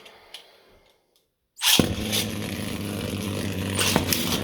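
3D-printed Beyblade tops launched with a sudden rip about a second and a half in, then spinning against each other: a steady whirring hum broken by sharp clicks as they hit.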